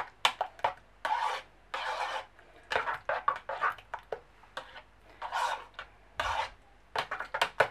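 A utensil stirring thick sweet potato soup in a saucepan, scraping against the pot in irregular strokes with a few sharp knocks.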